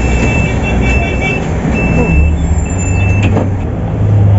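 Volvo 8400 city bus's diesel engine running with a steady low hum, heard from on board, with a high electronic beep sounding in several short stretches during the first three seconds.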